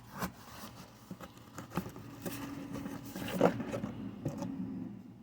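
A package being unpacked by hand: scrapes, rustles and light knocks from the box and its contents being handled.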